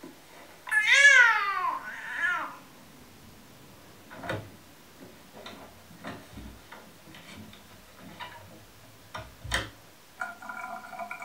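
A loud, high-pitched drawn-out cry that arches down in pitch, followed by a shorter second cry. A few scattered soft knocks follow, and steady tones start near the end.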